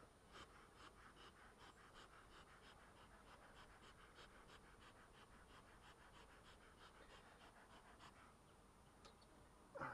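Bee smoker's bellows being pumped, giving quick, evenly spaced puffs of air that stop about eight seconds in. A brief louder noise comes near the end.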